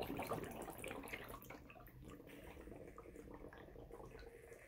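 Air blown through a drinking straw bubbling up into an upside-down, water-filled plastic bottle standing in a bowl of water: faint bubbling with many small pops, busiest in the first second and a half and then thinning out. The rising air is pushing the water down and out of the bottle.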